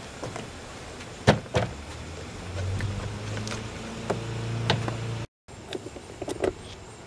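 Toyota Solara's plastic door trim panel being pressed back onto the door, with two sharp clip snaps a little over a second in and lighter knocks of handling. A low steady hum runs through the middle until a sudden cut.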